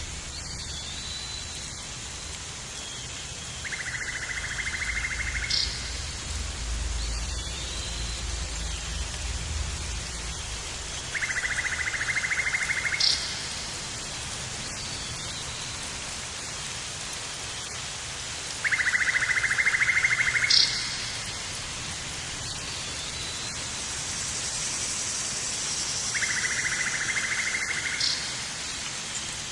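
Nature ambience: a steady rain-like hiss, with a low rumble during the first ten seconds or so. Over it a high, rapid trill of about two seconds repeats four times, roughly every seven and a half seconds, and each trill ends in a short higher note.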